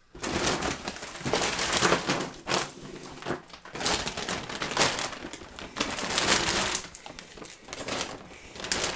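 Plastic carrier bag and plastic packs of frozen chicken fillets crinkling and rustling as they are handled and pulled out of the bag, unevenly and on and off.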